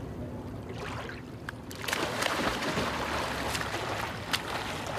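Water splashing as a swimmer starts front crawl in a lake, with a sharp splash at each arm stroke. The splashing starts about two seconds in, after a quieter stretch of water lapping around him as he wades.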